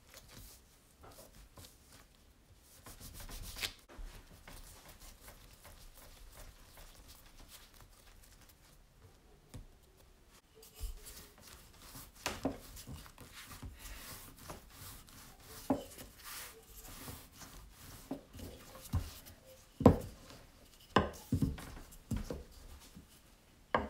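A dough scraper cutting through soft dough on a silicone mat, then a wooden rolling pin rolling the dough out. There is a rubbing sound with sharp knocks as the pin is pushed and set down, and the knocks are loudest in the last few seconds.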